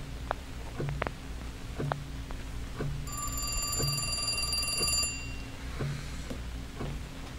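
An old-style telephone bell ringing once, a fast metallic trill lasting about two seconds, starting about three seconds in.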